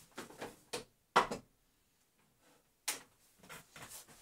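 A few sharp knocks and clatters of things being handled: the loudest about a second in, another just before three seconds in, with a quiet stretch between and light clicks and rustling around them.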